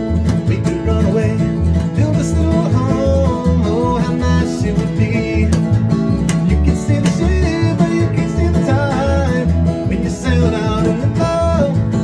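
Upright double bass plucked in a steady bass line under an acoustic guitar, playing a bluegrass-style tune.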